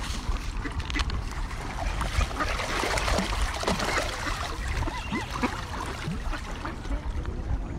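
A crowd of ducks, mostly mallards, splashing and churning the water as they scramble for birdseed, loudest a few seconds in, with a few short duck calls mixed in.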